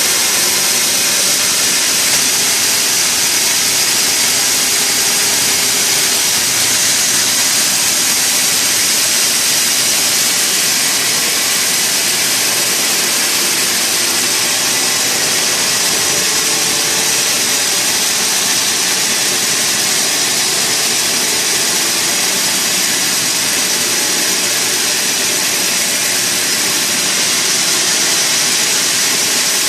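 Sawmill machinery running steadily: a loud, continuous high-pitched hiss that holds level throughout, with no breaks or changes.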